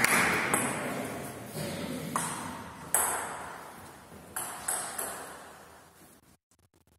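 Table tennis ball clicking in a handful of scattered hits rather than a steady rally, each ringing out in the hall's long echo. It fades away near the end.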